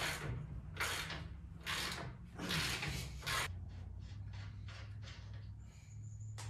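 Hand ratchet wrench clicking on its return strokes, about one stroke a second, then in shorter, quicker strokes from about three and a half seconds in. It is working a front-suspension bolt that may be seized.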